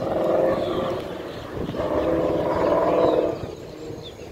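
A car engine running hard under acceleration in two spells, the second longer, with the exhaust note holding steady. Short high bird chirps come in near the end.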